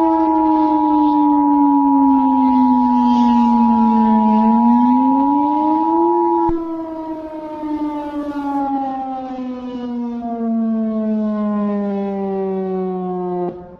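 Emergency Alert System attention signal, a steady two-note tone, sounding over a wailing civil defense siren. The tone cuts off about six and a half seconds in, and the siren carries on alone, quieter, its pitch slowly falling until it stops just before the end.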